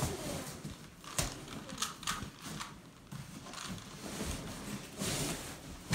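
Large cardboard Tuft & Needle mattress box being tipped and handled: a scatter of knocks and taps on the cardboard, then a rustling scrape near the end as the box and the rolled mattress inside shift.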